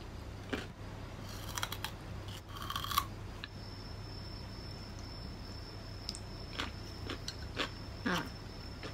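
Crisp crunching bites and chewing of raw vegetables close to the microphone, coming in short scattered bursts. A faint steady high whine joins about three and a half seconds in.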